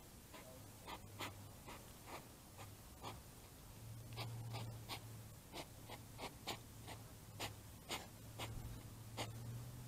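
Two hedgehogs foraging in dry leaves: irregular short crackles and ticks, about two a second, over a faint low steady hum.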